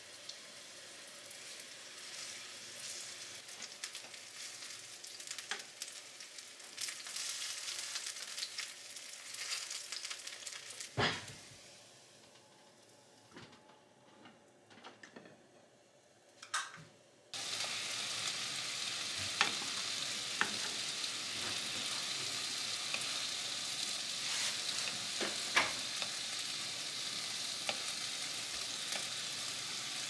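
Meat-stuffed shiitake mushroom caps sizzling in a frying pan, the sizzle building as they are set in one by one. About eleven seconds in there is a knock as a lid goes on, then a few seconds of near quiet with light clicks. From about seventeen seconds a louder, steady sizzle of the mushrooms frying in sauce sets in abruptly, with scattered spits and clinks.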